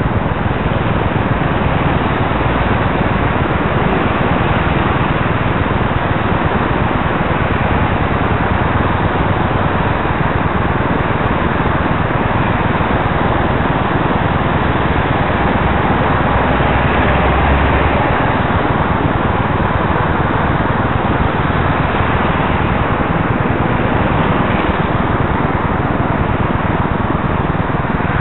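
Steady noise of passing road traffic, cars going by close at hand.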